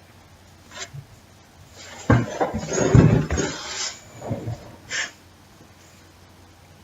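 A short burst of knocks, clatter and rustling as small objects are handled on a desk: one knock about a second in, a denser run of knocks for about two seconds in the middle, and a couple more near the end.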